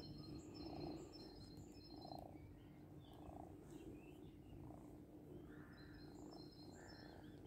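Near silence, with faint distant birds chirping in short repeated phrases.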